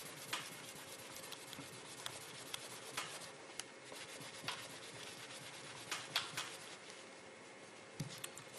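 Paper tissue rubbing and wiping over a small test piece on a workbench, a soft scuffing with scattered light clicks and taps.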